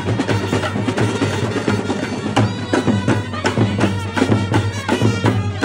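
Street brass band playing: trumpets and clarinet over fast, dense drumming, with the held horn notes coming through more strongly about halfway through.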